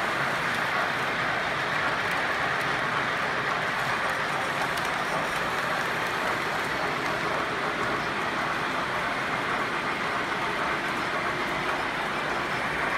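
Several electric model trains running at once on three-rail track: a steady rolling hiss and rumble of wheels on the metal rails, with the hum of their motors.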